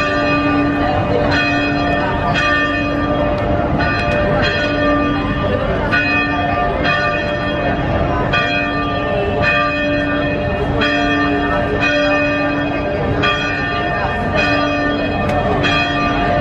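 Church bells ringing in a steady run of strokes, with bells of more than one pitch sounding in turn, over a constant background din.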